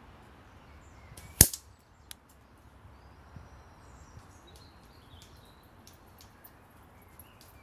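A single sharp shot from an airsoft rifle about a second and a half in, followed by a few small clicks, with faint birdsong in the background.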